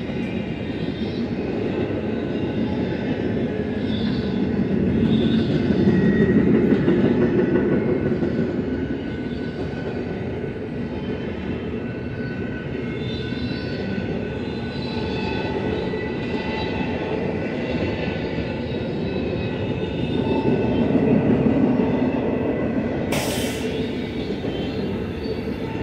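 BNSF double-stack intermodal freight cars rolling past: a steady rumble of steel wheels on rail with thin, high wheel squeal over it, swelling louder twice. A brief sharp crack near the end.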